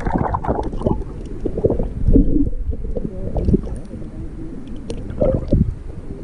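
Water sloshing and bubbling around a submerged camera, heard as dull, irregular low surges and rushes through the water.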